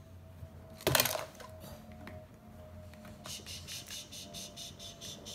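Something falls and lands with a loud clatter about a second in. From about three seconds in, a fast, even, high-pitched chirping runs on, several pulses a second.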